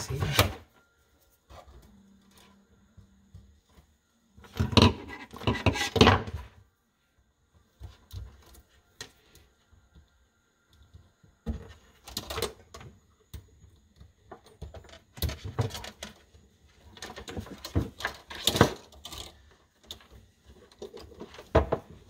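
Electrical wires and hand tools being handled: scattered clicks, rattles and scraping come in several bursts a few seconds apart, with quiet gaps between.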